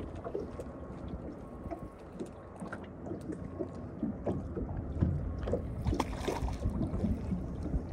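Small waves lapping against a small boat's hull, with wind on the microphone and scattered small splashes and ticks. Around six seconds in, a hooked fish splashes at the surface beside the boat.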